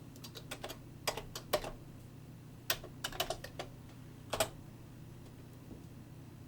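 Keystrokes on a computer keyboard: about a dozen sharp key clicks in uneven little runs, stopping after about four and a half seconds, over a faint low steady hum.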